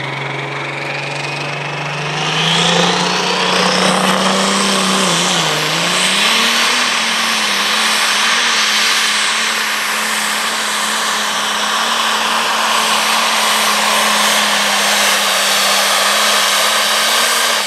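John Deere Super Stock pulling tractor's turbocharged diesel engine at full throttle, pulling the sled. It revs up about two seconds in with a whine rising in pitch, dips briefly around five seconds, then holds a steady high note until it drops off at the very end.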